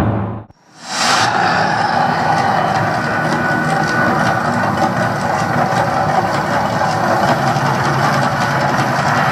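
The sound drops out briefly near the start, then a loud, steady rush of noise from the Mirage's man-made volcano erupting, its rows of gas flames burning along the lagoon.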